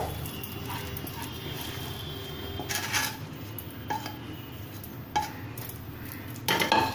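Wooden spatula scraping cooked khoa out of a non-stick frying pan onto a steel plate, with several light knocks and clinks of pan and spatula against the plate.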